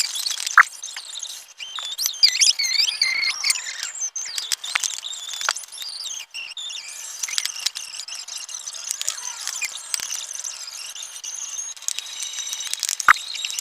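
Homemade slime being squished and stretched, giving irregular squelchy clicks, pops and high squeaks.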